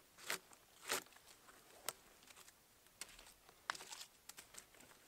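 Dry leaves and wood chips rustling and crunching as a person shifts about and handles a hand-hewn poplar log on the forest floor, in short scattered bursts with a few sharp light ticks.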